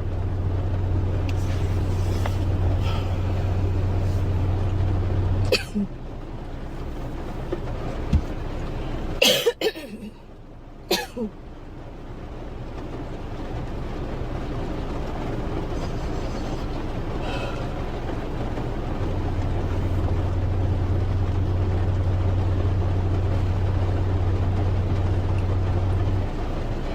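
A girl coughing briefly, once about nine seconds in and again about eleven seconds in, over a steady low rumble with a hum.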